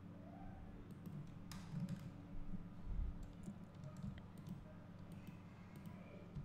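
Faint, scattered clicks of a computer mouse's buttons and scroll wheel, over a low steady hum.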